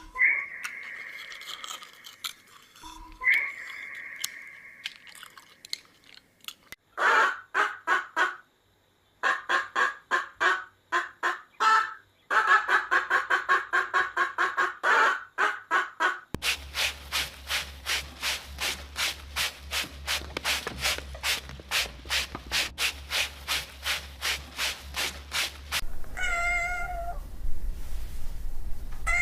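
Farm animals at feed, heard as long runs of fast, evenly repeated pulses, several a second. Near the end a cat meows twice.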